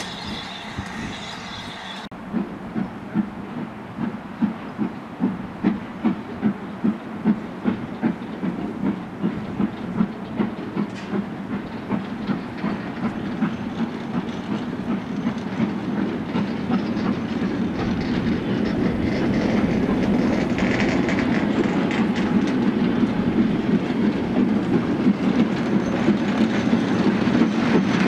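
Wagons of a steam-hauled freight train rolling past, their wheels clicking over the rail joints in a steady clickety-clack of about two beats a second. In the second half the sound thickens into a louder, busier rumble. A high squeal cuts off about two seconds in.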